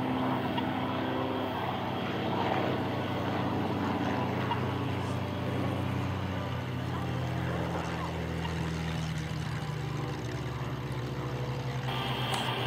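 Spitfire's V12 piston engine running at low power as the fighter lands and rolls along the runway: a steady propeller drone whose pitch rises slightly about two-thirds of the way through.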